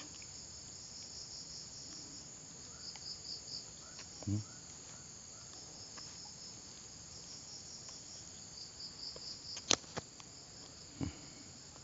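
Insects chirring steadily in a high, pulsing chorus, with a few soft knocks and one sharp click from handling near the end.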